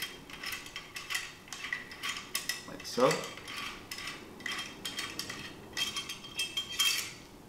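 Small metallic clicks and scrapes as the front cocking rod of an HonorCore TGR-series paintball marker is unscrewed and drawn out of the handguard, with a faint ringing of metal near the end.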